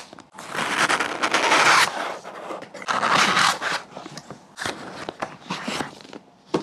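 Close-miked cardboard shipping box being opened: two long scrapes as the flaps are pulled open and folded back, then light taps and brushing as the boxed laptop is slid out of the cardboard.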